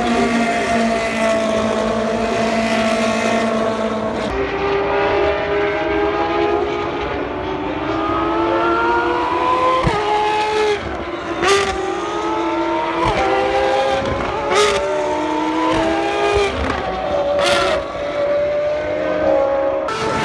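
Ferrari race car engines running hard on a circuit. A steady, held engine note gives way after a few seconds to notes that climb and drop back as the cars shift up through the gears. Several sharp cracks come at the upshifts.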